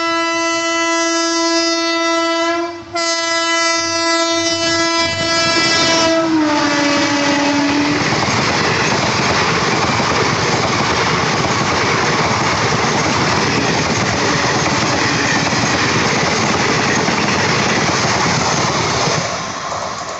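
WAP-4 electric locomotive's air horn sounding two long blasts, the second sliding down in pitch as the locomotive passes. Then the coaches of an express train rumble and clatter over the rails at speed, fading near the end as the train draws away.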